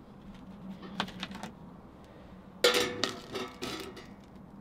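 Metal cookware and utensils clinking and knocking as food is served onto plates. The loudest clatter comes about two and a half seconds in, one knock ringing briefly.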